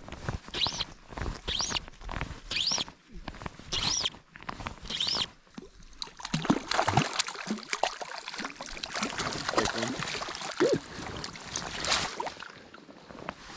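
Fly rod and line swishing through the air on repeated false casts, about once a second for five or six strokes. This is followed by water sloshing with small clicks and knocks.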